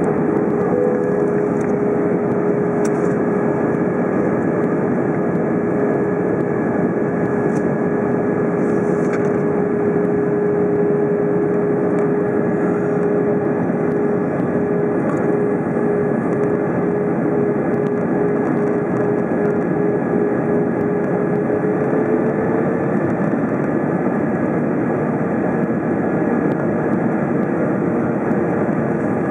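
Steady jet engine and airflow noise inside the cabin of an Airbus A321 in flight, with a steady engine hum that rises slightly in pitch about 22 seconds in and then fades into the noise.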